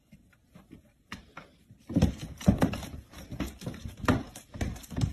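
Cats play-fighting on a wooden floor: irregular thumps and scuffles of paws and bodies hitting the boards, starting about two seconds in after a near-silent start.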